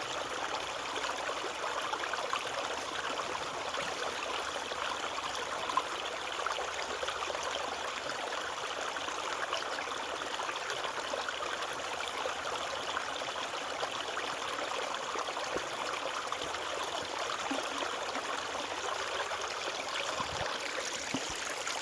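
Small stream flowing steadily over stones, an even rushing babble of running water.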